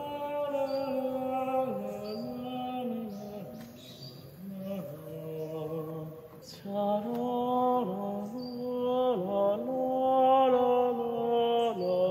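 Background music: a slow melody of long held, chant-like notes that thins out in the middle and comes back fuller about seven seconds in.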